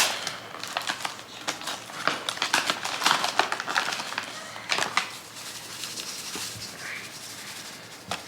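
Cornbread-mix packaging being handled and opened: crinkling and rustling with many sharp crackles and clicks, busiest in the first five seconds and quieter after.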